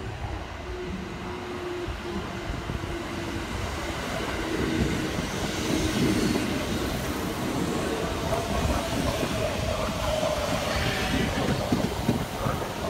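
Kintetsu electric commuter train running in alongside the station platform: wheels clicking over rail joints under a rumbling run, with a faint steady whine. It grows louder as the cars draw level, about five seconds in.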